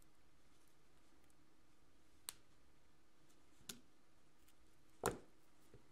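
Small metallic clicks of pliers jaws and brass jump rings as a jump ring is worked closed: three sharp clicks about a second and a half apart, the last loudest, with a faint fourth just after, over quiet room tone.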